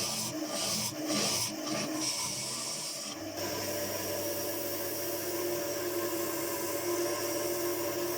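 Maple being worked on a woodturning lathe: rough rubbing, rasping strokes about twice a second. About three seconds in, these give way to a steady machine hum with a few held tones.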